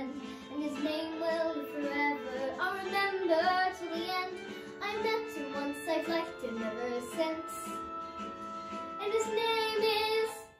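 A girl singing a musical-theatre song over a recorded accompaniment, with sustained held notes; the music stops abruptly at the very end.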